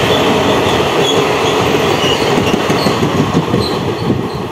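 Trains passing through at speed: steel wheels rumbling and clattering on the rails, with faint high squeals from the wheels. The noise slowly fades near the end.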